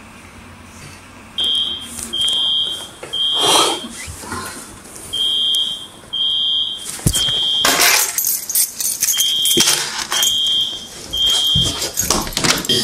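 Fire alarm sounding in loud, high-pitched beeps in groups of three with a pause between groups, the temporal-three evacuation pattern, starting about a second and a half in. Rustling and knocks of the camera being handled on the move come in between.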